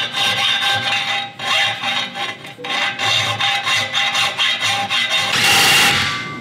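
Background music over a hand tool scraping on the go-kart's steel engine plate in short, uneven strokes. Near the end comes a louder burst of harsh noise lasting about a second.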